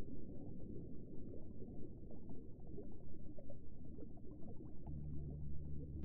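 Bubbling, gurgling water ambience, a steady low wash dotted with small pops. A low steady drone comes in near the end.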